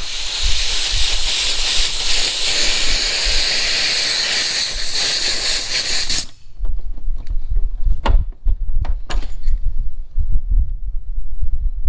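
Pneumatic air hammer running against a rear barn-door hinge pin to drive it out, a loud steady hiss for about six seconds that stops abruptly. Afterwards a low rumble of wind on the microphone with a couple of sharp clicks.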